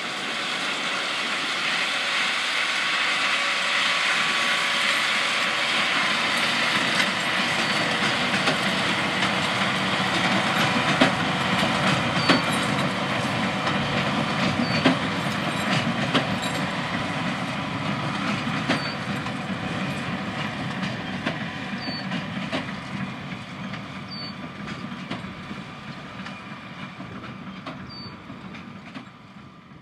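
A John Deere tractor pulling a New Holland large square baler while baling hay: the tractor engine runs steadily under the clatter of the baler. A short high chirp comes every few seconds, and the sound slowly fades toward the end.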